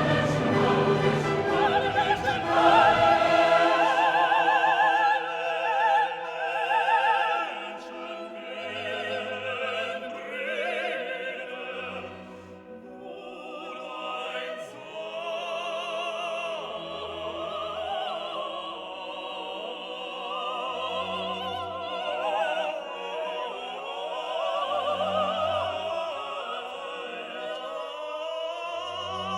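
Background music: operatic classical singing with vibrato over sustained orchestral accompaniment.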